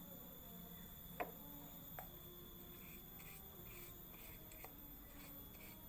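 A paintbrush rubbing wood glue onto pasted newspaper in faint, soft brush strokes, about two to three a second in the second half. Two light taps come about one and two seconds in.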